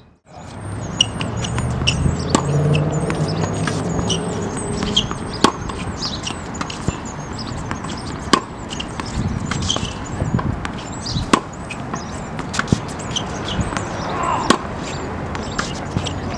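Tennis balls struck by a racket in a forehand rally: a sharp pop every three seconds or so, with fainter knocks of the ball bouncing in between, over a steady outdoor background.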